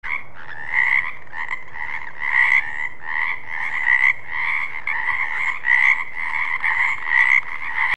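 Frog croaking in a fast, continuous run of repeated calls, with louder croaks about every second and a half; the sound cuts off suddenly at the end.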